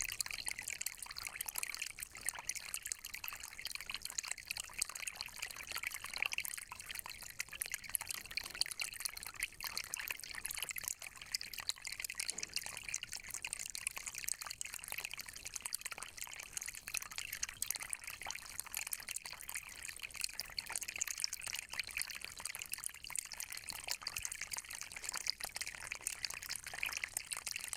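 Spring water trickling and bubbling steadily, a continuous patter of small splashes and drips.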